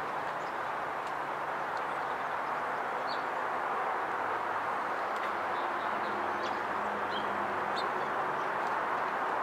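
Steady outdoor background noise, with scattered faint, short high chirps from small birds at a seed feeder.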